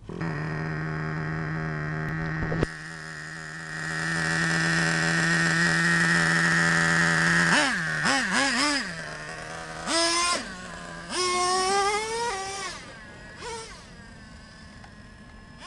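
Traxxas Revo 3.3 nitro RC truck's small two-stroke glow engine, started and idling at a steady high pitch. From about eight seconds it revs up and down in short throttle bursts, with the pitch rising and falling as the truck drives off, and it grows fainter near the end.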